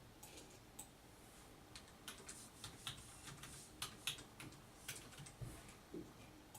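Faint typing on a computer keyboard: irregular keystroke clicks, sparse at first and quicker in the middle.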